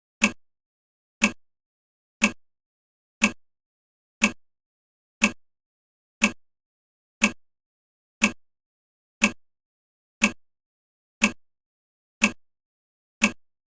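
Countdown timer ticking once a second: short, sharp clock-tick clicks, each dying away fast, with silence between them.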